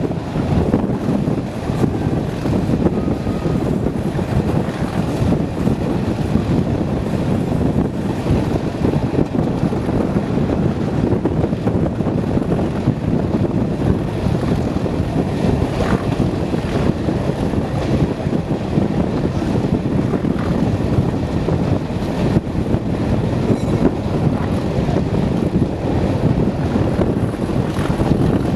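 Class 37 diesel locomotive 37405, with its English Electric 12CSVT engine, hauling a train at speed, heard from an open coach window behind it as a steady, loud, deep rumble mixed with wheel-on-rail noise and wind buffeting the microphone.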